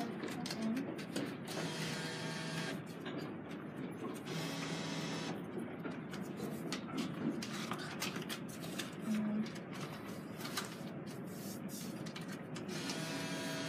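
Drink vending machine's delivery-cart motor whirring in short runs of about a second, several times, with clicks and knocks from the mechanism in between, as the cart cycles trying to deliver a bottle.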